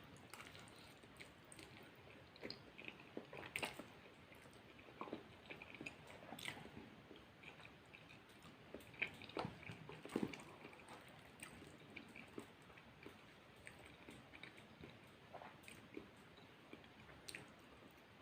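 Close-miked chewing of food from a McDonald's spaghetti platter: irregular soft wet mouth sounds and small clicks, several louder ones around the middle.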